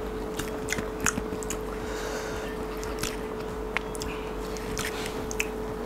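Soft eating sounds: scattered small clicks and mouth smacks as a person tastes food from his fingers and handles a small plastic container with a spoon, over a steady hum.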